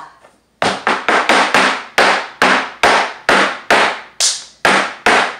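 Flamenco shoes striking a plywood floor in zapateado footwork: a quick run of sharp, even taps, about four a second, starting about half a second in.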